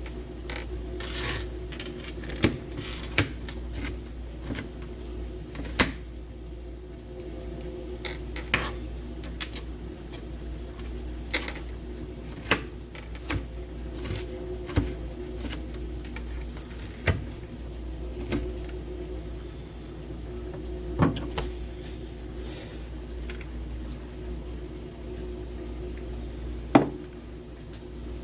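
Kitchen clatter: irregular knocks and clinks of utensils, dishes and pans, a few of them sharp and loud, over a steady low hum.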